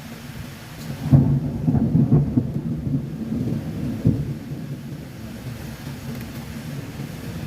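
A clap of thunder breaks sharply about a second in and rumbles on for several seconds, with a second crack near the four-second mark, before dying away. Steady rain and wind noise runs underneath.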